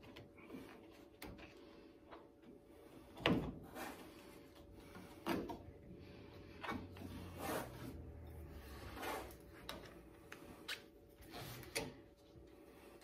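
Irregular knocks, clicks and rubbing as rubber weatherstripping is handled, pressed and seated into a car's roof-rail channel, about half a dozen separate knocks, with a faint steady hum beneath.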